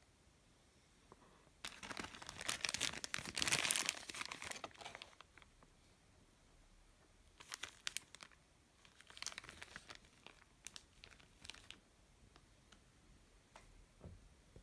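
Plastic packaging crinkling as it is handled, a small clear zip bag of spare swooshes among it: a long stretch of crackling in the first few seconds, then several shorter bursts.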